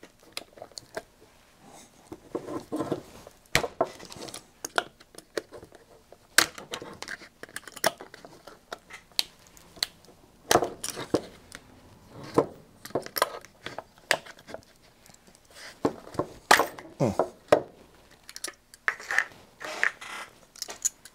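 Glued-on white plastic feed-horn cover of a satellite LNB being gripped with small Knipex Cobra pliers and twisted and pried off, giving irregular sharp plastic cracks and clicks with scraping and creaking between them.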